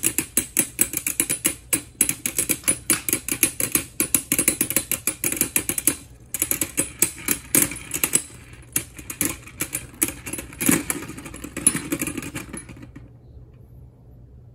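Two Beyblade Burst spinning tops clashing over and over in a plastic stadium, a fast run of sharp clicks and knocks. The hits thin out as the tops lose spin and stop near the end.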